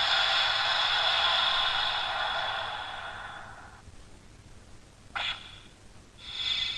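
Electronic sound effects from the speaker of a Shining Tiga Spark Lence toy in its Dark Tiga mode: a rushing noise that fades away over about four seconds, a short burst about five seconds in, and another effect starting near the end.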